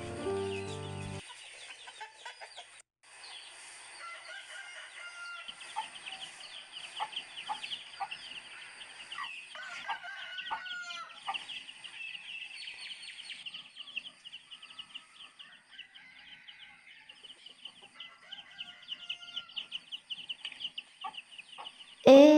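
Poultry-yard ambience: chickens clucking, with many small bird chirps over a faint steady high hiss. A phrase of music cuts off about a second in.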